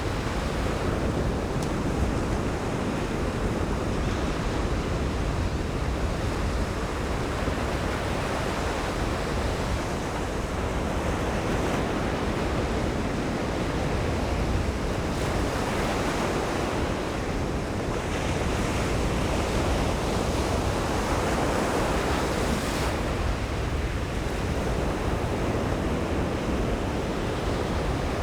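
Ocean surf breaking on a beach: a continuous wash of waves that swells and eases, with a few louder breakers in the second half.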